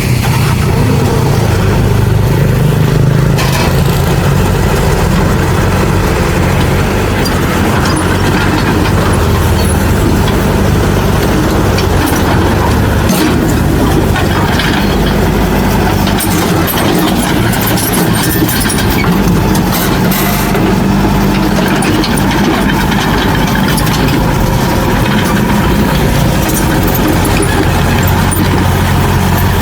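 Heavy earthmoving machinery's diesel engine running steadily, with a few brief clanks partway through.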